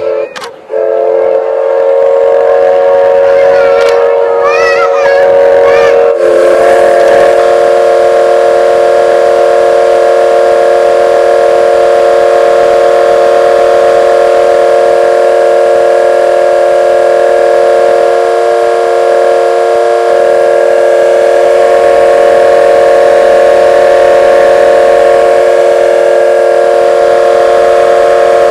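Vocoder-processed audio effect: a loud, steady drone of several held tones stacked like a whistle chord, setting in about a second in. Wavering pitched sounds ride over it around four to six seconds in, and it thickens and stays level after that.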